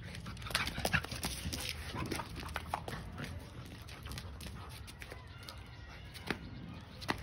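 A Labrador retriever running and playing in shallow puddles: a quick flurry of short splashes and dog noises in the first three seconds, then sparser, with two sharp sounds near the end.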